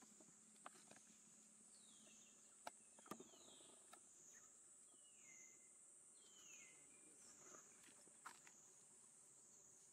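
Near silence with faint outdoor ambience: a steady high insect drone that wavers slowly in pitch, a few short descending chirps, and scattered soft clicks.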